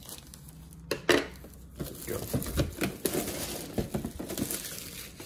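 Scissors cutting into plastic packaging, with the plastic crinkling and rustling. There is a sharp click about a second in, then a run of short snips and crackles.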